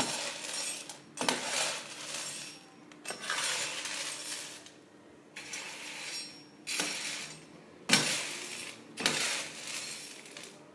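Coffee beans being stirred on a metal baking tray with a perforated metal spatula: the spatula scrapes the tray and scoops of beans rattle and patter back down, about seven strokes a second or so apart. This is the mid-roast turning that lets the beans colour evenly.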